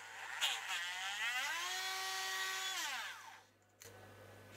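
Small electric drill motor revving up with a rising whine after a click, running steadily for about a second and a half, then winding down, while enlarging a hole in a plastic project box.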